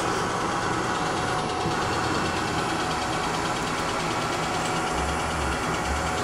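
Hurco Hawk 30 CNC vertical bed mill running: a steady machine hum with a few steady whining tones held through.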